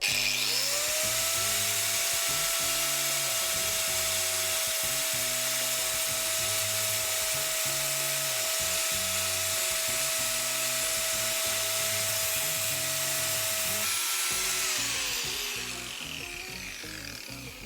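A handheld power tool starts up, its motor whine climbing quickly to a steady high pitch over a loud hiss, runs for about fourteen seconds, then winds down. It is most likely working on the PC's metal case to clear the blocked graphics-card ports.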